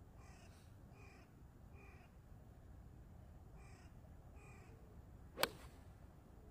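A crow caws five times, then about five seconds in a 7-iron strikes a golf ball off a tee mat with one sharp, crisp click.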